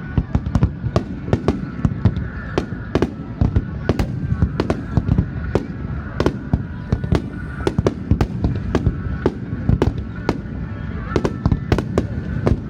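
Fireworks display: a rapid barrage of sharp bangs, several a second, over a continuous low rumble of bursting shells.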